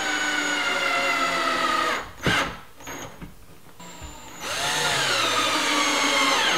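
Cordless drill driving wood screws through a metal hinge into a wooden gate, in two runs: the motor whine drops in pitch as each screw bites in. A short sharp knock falls between the runs, about two seconds in.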